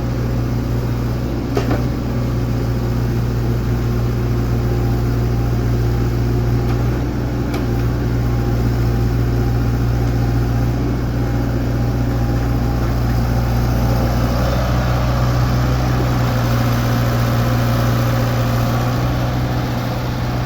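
Excavator's diesel engine running steadily, with a couple of short clicks.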